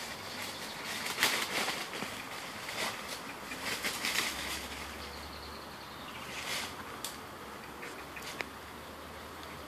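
A dog running through leafy undergrowth, its body brushing the plants and dry leaves in rustling bursts about a second, four seconds and six and a half seconds in, with a few short snaps and clicks between.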